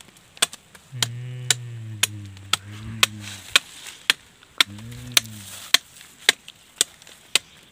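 A long-handled digging tool striking into hard, root-filled earth again and again, about two strikes a second, digging out wild potatoes. A man's low voice hums briefly twice between the strikes.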